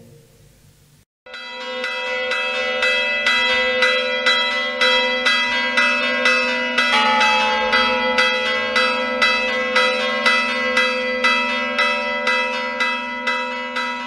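Church bells ringing a peal, starting about a second in after a brief silence, with evenly spaced strokes about twice a second that ring on into one another.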